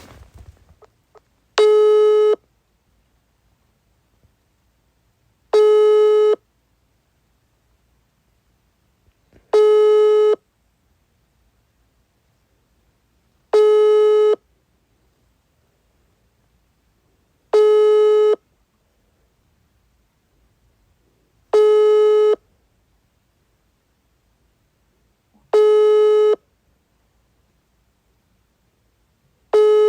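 Russian telephone ringback tone: a single buzzy tone lasting under a second, repeated every four seconds with silence between, eight times. It is the signal that the called phone is ringing and has not yet been answered.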